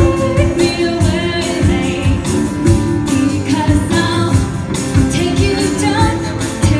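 A song with a steady beat: singing over a band, with a tambourine-like shaker keeping time.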